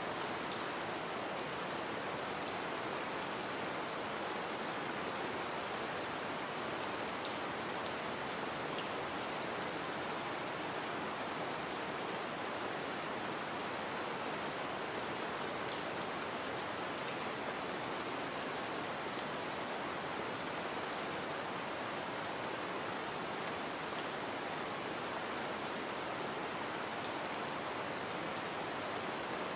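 Gentle rain falling steadily: an even hiss with scattered individual drop ticks.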